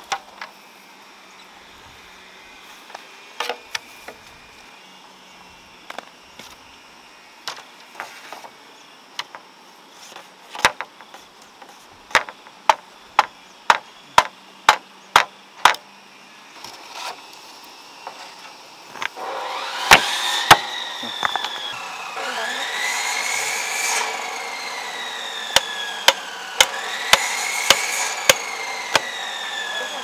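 Sharp knocks of wood on bamboo as a bamboo fence is put together, including a quick run of about two knocks a second. From about two-thirds of the way in, a pitched whine rises and falls in pitch several times, with more knocks over it.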